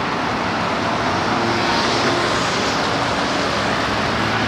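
Busy road traffic: a steady rush of engine and tyre noise, with a passing vehicle swelling louder about two seconds in.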